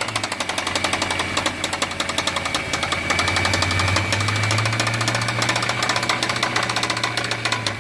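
Mercedes-AMG C63 engine running with a loud, rapid, even rattle over its low steady note. The engine note rises slightly about four seconds in.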